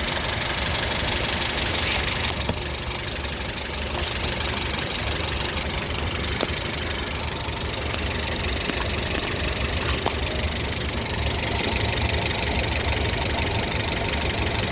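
2012 Honda Civic EX's 1.8-litre four-cylinder engine idling steadily, warm, with the air conditioning off.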